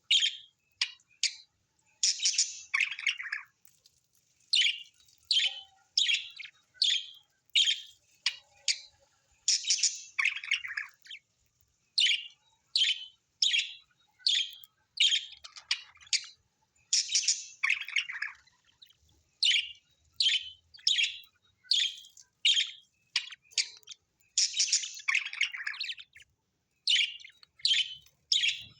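Birds chirping in a steady series of short, high calls, about one or two a second, with a few longer calls that slide down in pitch.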